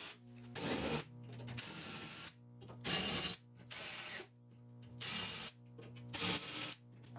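MIG welder laying plug welds through the punched holes of a steel rocker panel into the inner sill, in about six short bursts of welding noise, each about half a second and stopping sharply, with brief pauses between. Background music plays underneath.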